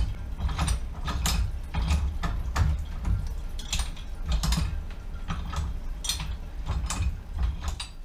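Ratchet head of a basket wine press being worked by its lever to press fermented red-grape pomace: the metal pawl pins click as they ride over and drop into the ratchet teeth, about twice a second and unevenly, over a low knocking from the press.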